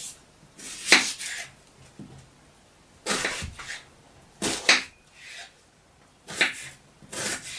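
Kitchen knife slicing through a peeled onion and striking a wooden cutting board. The cuts come in about six short crunchy bursts with brief pauses between them as the onion is diced.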